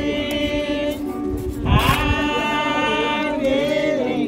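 Voices singing slowly, holding long notes, with a louder new phrase coming in about two seconds in.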